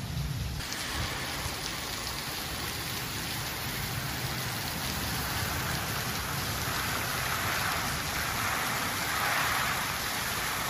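Heavy rain pouring down in a severe thunderstorm: a dense, steady hiss that grows a little stronger near the end.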